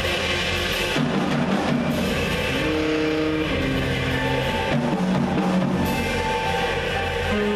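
Jazz group playing, with the drum kit prominent and held low notes underneath.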